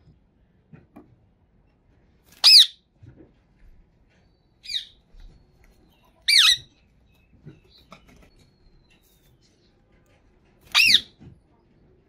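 Indian ringneck parakeet giving four short, shrill calls a couple of seconds apart, the second one fainter than the rest.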